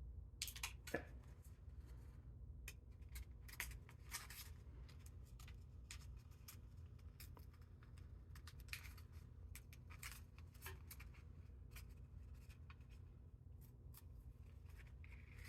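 Faint, scattered scratches and small clicks of fingernails picking and peeling at the adhesive backing of a sticker, over a low steady hum.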